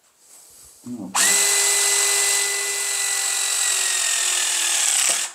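Hydraulic crimping tool's motor pump running for about four seconds as it presses a cable lug, its whine sagging slightly in pitch under load before cutting off sharply.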